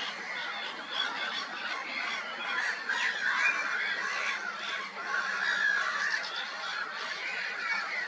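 Black-headed gulls calling: many harsh, overlapping calls with no break.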